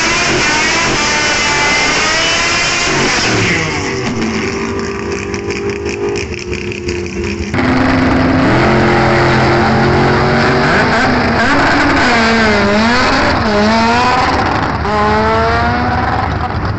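Drag cars' engines revving hard through burnouts and a launch, the pitch climbing and dropping again and again, with an abrupt change about seven and a half seconds in.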